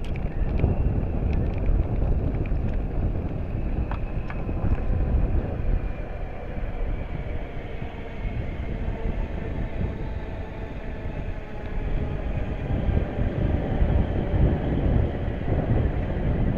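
London Northwestern electric multiple unit running through the station, with a faint whine that falls slowly in pitch. Heavy low wind rumble on the microphone underlies it throughout.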